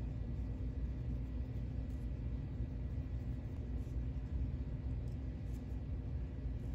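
Steady low background rumble with a faint, steady high-pitched whine, and a few faint soft scratches.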